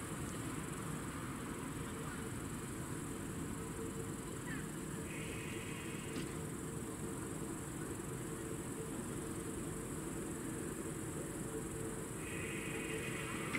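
Crickets chirping steadily, with a higher buzzing trill joining in twice, about five seconds in and again near the end. Under them runs the low steady hum of a distant diesel railcar approaching.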